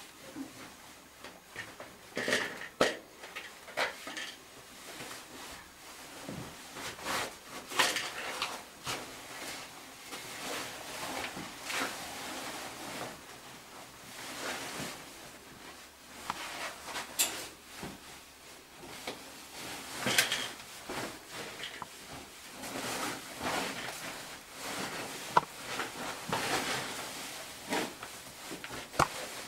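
A caver's suit and gear scraping and rustling against rock while squeezing through a tight gap beside a metal gate, with irregular sharp clinks and knocks as the gear bumps rock and bars.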